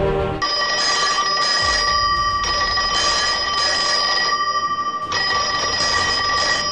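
Old desk telephone's bell ringing insistently. It starts about half a second in and rings almost without a break, with one short pause about four and a half seconds in.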